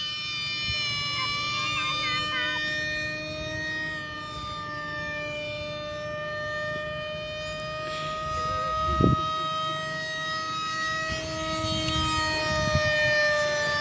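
Radio-controlled Sukhoi Su-30 model jet flying overhead: a steady whine of several pitches together, drifting slightly in pitch as it passes.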